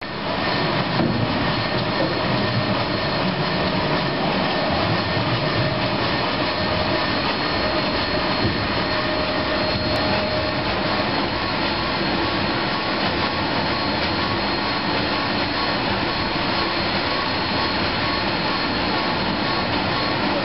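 Telescopic boom conveyor running, a steady loud mechanical whirring as the boom moves and the drop snoot lowers, with a faint whine partway through.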